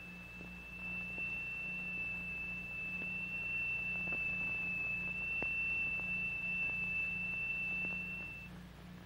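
A steady, high-pitched pure tone: the higher note fed through a crystal to set a triangular plate vibrating. It cuts off about eight and a half seconds in, with a faint low hum underneath.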